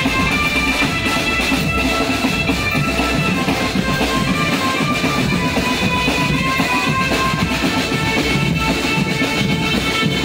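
Loud, continuous music with drums under a line of held melody notes.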